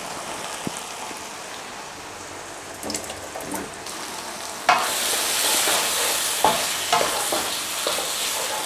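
Thick chicken curry sauce sizzling in a nonstick pan. A bit past halfway a wooden spatula starts stirring it, the sizzle jumps louder, with short scrapes and knocks of the spatula against the pan.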